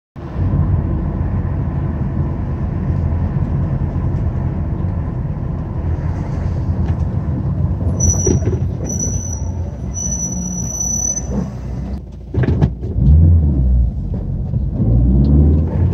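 Car engine and tyre rumble while driving on city streets. A high whine comes and goes a few times around the middle. Near the end the engine pitch rises and falls as the car pulls away and moves up through the gears.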